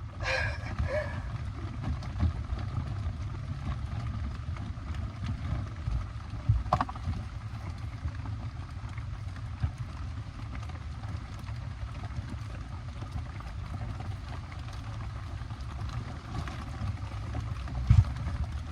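Steady rain on the bike camper and its plastic tarps, with a low rumble throughout and a couple of light knocks, one about seven seconds in and one near the end.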